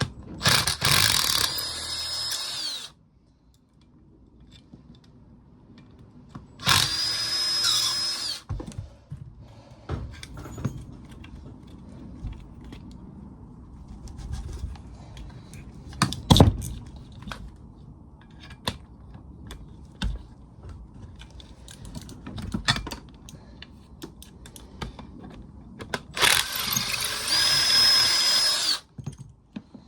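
Power drill spinning Allen bolts out of a washing machine motor in three runs of about two seconds each, near the start, about seven seconds in and near the end, its whine rising slightly then dropping as it stops. Between the runs come clicks and knocks of parts being handled, with one louder knock about halfway through.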